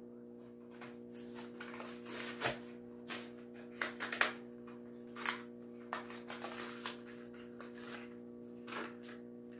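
A double-layered plastic blister pack being worked open by hand to free a diecast toy truck: scattered crinkles, crackles and clicks over a steady low hum.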